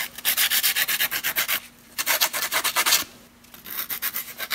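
Hot soldering-gun tip scrubbed rapidly back and forth against emery paper to clean it, in three bouts of fast rasping strokes with two brief pauses.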